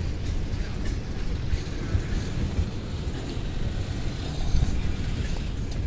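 Loaded container flatcars of a long freight train rolling past on standard-gauge track, a steady low rumble of wheels on rails.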